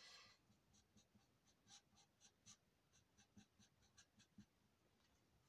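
Faint, quick strokes of an alcohol marker's nib on paper while colouring, about four a second, stopping a little after four seconds in.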